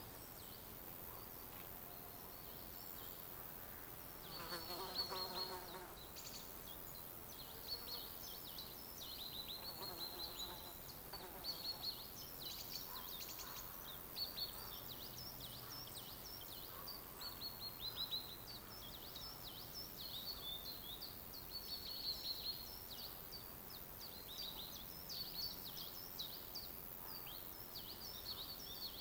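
Forest ambience of small songbirds singing in quick, high chirping phrases over a soft steady hiss. About four seconds in, a brief lower buzzing sound.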